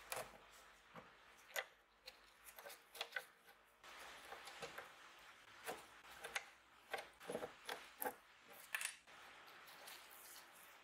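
A rusty steel loop plate being worked loose from old wood with a screwdriver and gloved fingers: irregular sharp metal clicks and small scrapes, a dozen or so, several close together between about six and nine seconds in.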